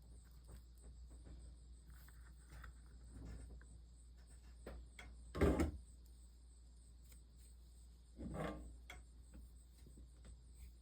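Two short clunks, about three seconds apart, of objects being moved or set down on a workbench, with faint ticks in between over a low steady hum.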